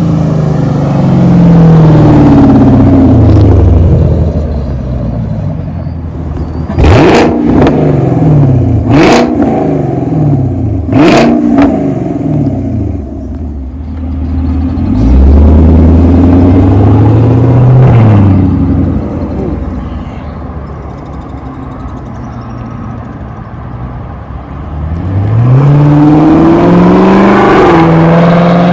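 A 2019 Camaro SS's 6.2-litre LT1 V8 with the mufflers deleted (straight-piped) runs loud, its pitch climbing and dropping several times as it accelerates and shifts. Three sharp backfire pops crack out of the exhaust while the revs fall, spaced about two seconds apart in the first half.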